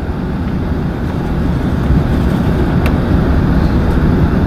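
Steady low rumble of cabin noise inside an Airbus A380 taxiing after landing, with a faint click about three seconds in.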